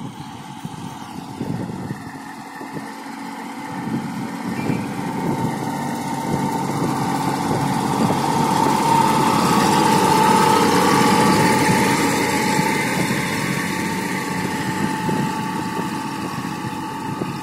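Kubota B2741 mini tractor's three-cylinder diesel engine running steadily while pulling a seed drill through the soil. It grows louder as the tractor approaches and passes close by about halfway through, then fades a little as it moves away.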